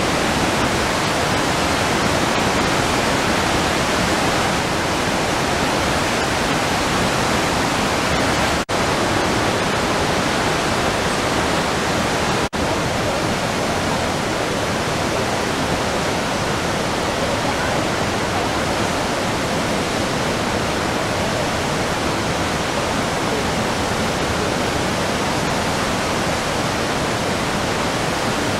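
Loud, steady rush of water from the Iguaçu Falls, an unbroken roar of falling water that cuts out for an instant twice, about nine and twelve seconds in.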